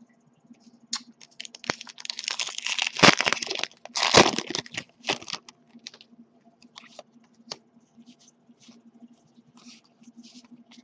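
Foil booster-pack wrapper being handled and torn open: dense crinkling and tearing, loudest between about two and five seconds in, then scattered light crinkles.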